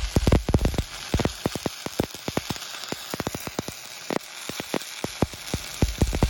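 Shielded metal arc (stick) welding with a cellulosic pipeline rod on steel pipe: the arc keeps up a hiss with dense, irregular crackling and popping. The popping thins out and quiets between about two and five seconds in, then picks up again.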